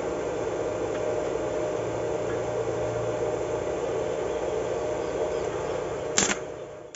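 Steady hum and hiss of a running stick (arc) welding machine, with one sharp click about six seconds in, after which the sound fades away.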